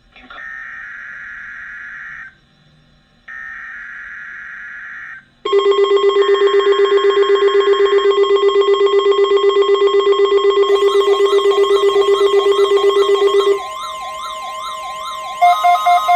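Weather radio emergency alert test: two screechy digital data bursts of the alert header, then a loud, rapidly pulsing alert tone made of several steady tones. Warbling, siren-like sweeps join in about halfway through, and the tone changes to rapid beeping near the end.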